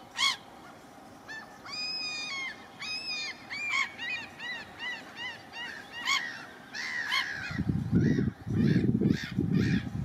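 Common gulls calling: a short sharp call near the start, then two drawn-out calls, then a quick run of short rising-and-falling calls about four a second. In the last two seconds a loud low rumble covers the calls.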